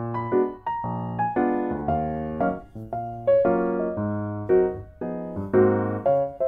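Background piano music: struck chords and melody notes, about two a second, each fading before the next.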